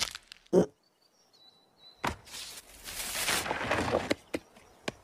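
Sound effects of an animated scene: a short thud, then after a quiet pause about two seconds of rustling noise, followed by a few sharp clicks near the end.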